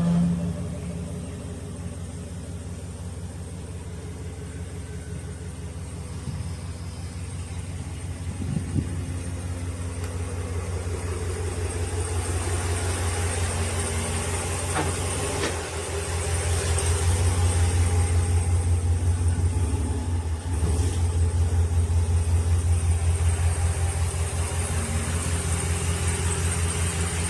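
A vehicle's engine idling with a steady low, pulsing hum that grows louder a little past halfway, with a couple of faint clicks.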